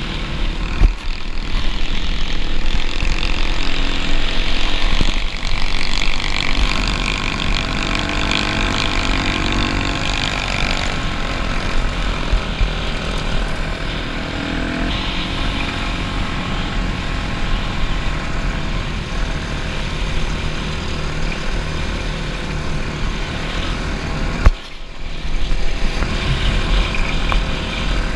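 Dirt bike engine running under throttle while riding a gravel road, its pitch rising and falling with the throttle, and wind rushing over the microphone. The engine drops off sharply for a moment near the end, then picks up again.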